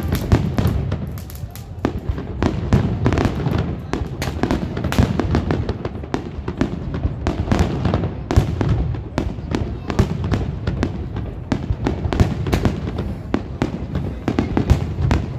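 Aerial fireworks display: shells bursting overhead in a dense, continuous run of sharp bangs and crackles, many per second, over a rumbling background.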